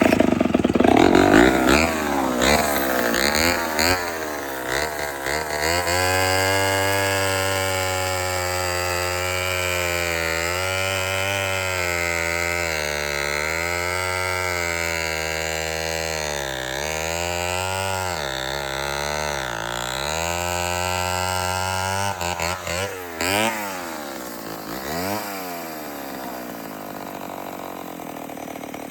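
A 1961 Homelite 500 chainsaw's two-stroke engine starting up abruptly and revving, freshly carburetor-tuned after decades unused. Its engine speed swings up and down repeatedly, then comes a few sharp revs up and back down, and near the end it settles to a lower, steadier run.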